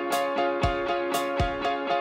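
Background music: plucked guitar-like notes over a steady beat, with a low drum hit and a bright cymbal-like hit recurring about once a second.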